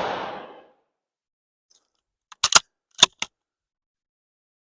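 The fading echo of a Mosin-Nagant 7.62 rifle shot dies away in the first half second, then about two and a half seconds in come four or five sharp metallic clicks, the rifle's bolt being worked to eject the spent case and chamber another round.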